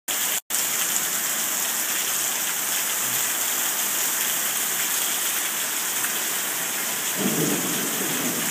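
Heavy rain pouring straight down onto a concrete patio and lawn, a steady dense hiss. It cuts out for a split second just after the start, and a low rumble comes in about seven seconds in.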